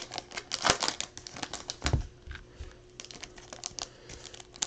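Foil trading-card pack wrapper crinkling and cards being handled: a run of irregular light crackles and clicks, busier in the first half and again near the end.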